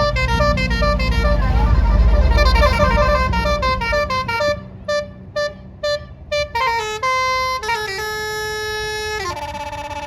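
A bus's basuri musical air horn (a 'telolet' horn) playing a tune. First a quick run of short notes over the low rumble of the bus's engine, which fades about four seconds in. Then separate short toots, and finally a few long held notes that step down in pitch near the end.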